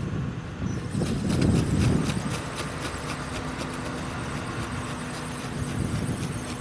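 Wind buffeting the microphone as a low rumble, in gusts that are strongest about a second in. From about a second in, a fast, even ticking runs over it.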